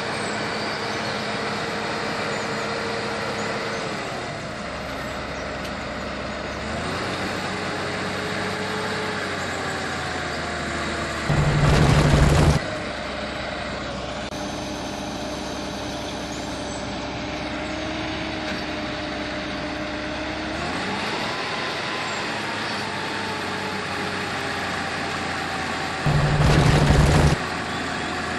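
Heavy-vehicle engine running, its pitch shifting up and down a few times, broken twice by a short, loud blast lasting about a second, once about halfway through and once near the end.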